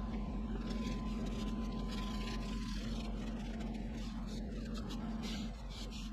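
A steady low mechanical hum, with a faint thin tone that stops about two and a half seconds in.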